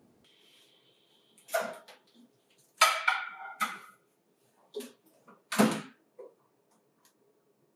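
A countertop combination microwave oven being loaded. There are knocks and clatters as its door is opened and a metal cake tin is set inside, with a ringing metallic clank about three seconds in. The door shuts with a thud a little before six seconds.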